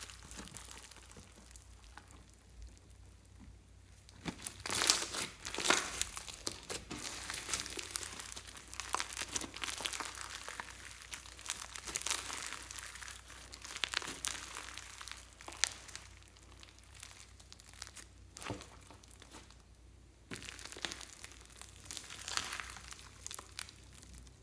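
Clear slime being kneaded and stretched by hand: a dense run of small sticky crackles and pops. It goes quieter for a couple of seconds near the start and briefly again near the end.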